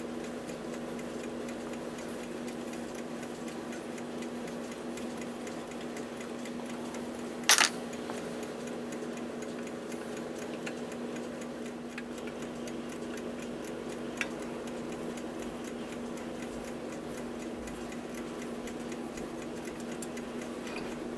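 A clock ticking steadily over a constant low hum, with one sharp click about seven seconds in and a fainter one near fourteen seconds, as small screws are worked out of the top plate of a brass clock movement.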